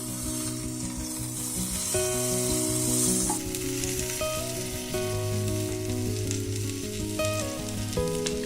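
Salami-and-cheese omelette sizzling as it fries in a pan, louder for the first three seconds or so, then fainter. Background guitar music plays over it.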